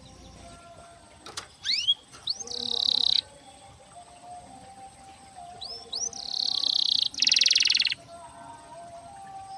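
Domestic canary singing: two song phrases, each opening with a few quick upward-sweeping whistles and running into a fast rolling trill, the second ending in a louder, buzzier roll.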